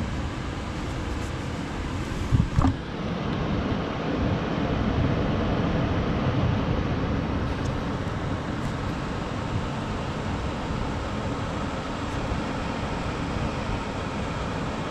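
2012 Bryant Legacy Line gas furnace running with a steady low rushing sound, with a brief loud thump about two and a half seconds in.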